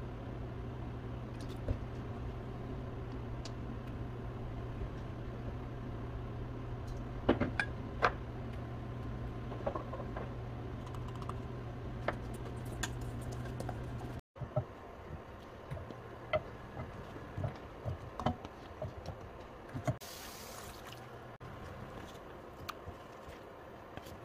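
Wooden spoon stirring thick seasoning paste in a stainless steel bowl: light scrapes and clicks against the metal over a steady low hum, with two sharper clicks about halfway through. Past the middle the hum stops abruptly, and scattered light knocks and clicks follow as food pieces are set into a frying pan.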